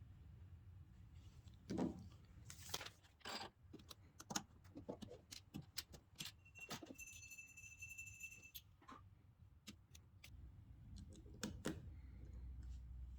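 Plastic LEGO pieces clicking and rattling as they are handled, in scattered bursts of sharp clicks. A little past the middle, a steady high tone sounds for about two seconds.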